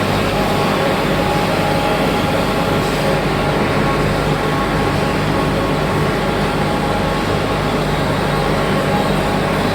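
Sawdust briquette production line machinery running steadily: a loud, even mechanical noise with a constant hum.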